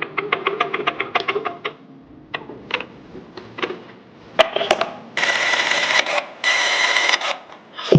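Workshop tool sounds during engine reassembly: a quick run of sharp metallic clicks, then scattered clicks and knocks. About five seconds in, a power tool runs steadily in two long bursts.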